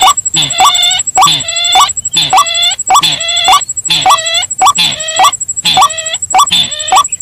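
Looped bird-lure recording of white-breasted waterhen (ruak-ruak) and sintar rail calls mixed together: a steady run of repeated calls, nearly two a second, each a short high note followed by a longer call.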